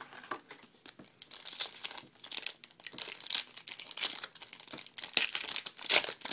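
Crinkling and crackling of a trading-card pack wrapper being handled, an irregular run of crackles throughout.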